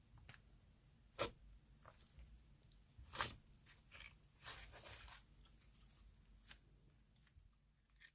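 Hands squishing, stretching and tearing soft clay slime, making soft crackles and rustles, with two sharper snaps about a second in and about three seconds in.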